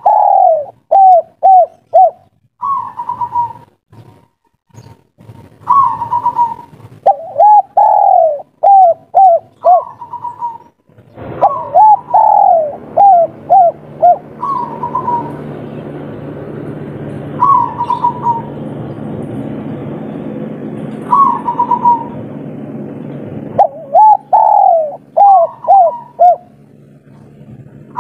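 Spotted dove cooing its three-note 'kuk 3' song over and over, the song a male uses to call females. Each phrase is a higher coo followed by several short falling coos, repeating every few seconds. A steady low background noise runs underneath through the middle stretch.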